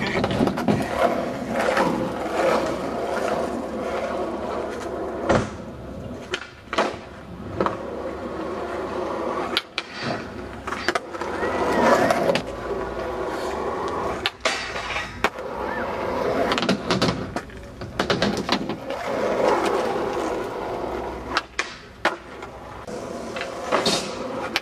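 Skateboard wheels rolling over rough asphalt with a continuous rumble. The ride is broken every few seconds by sharp clacks of the board: tail pops and landings. There are a few brief squeaks.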